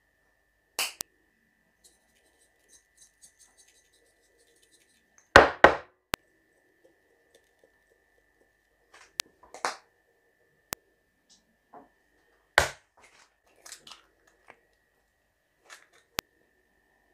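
Scattered knocks and clatters of kitchen utensils and dishes being handled, a few sharp hits several seconds apart with the loudest about five seconds in. A faint steady high tone runs underneath.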